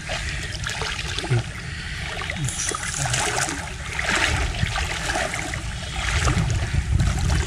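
Fast-flowing river water swirling and gurgling close to the microphone, with small splashes and a low rumble that grows louder near the end.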